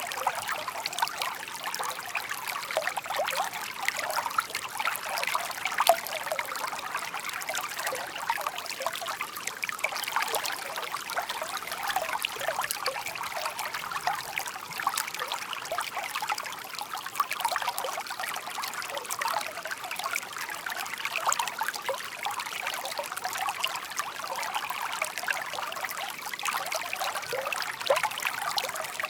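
Shallow stream babbling and trickling over stones, a continuous stream of small splashing bubbles.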